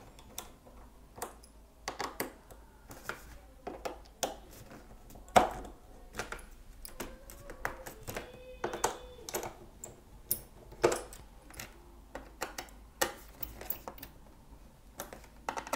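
Irregular clicks, taps and knocks of a ThinkPad X1 Carbon laptop being handled on a desk: plastic and aluminium casing pressed, shifted and turned over, with the lid opened. Two sharper knocks stand out, about five seconds in and near eleven seconds.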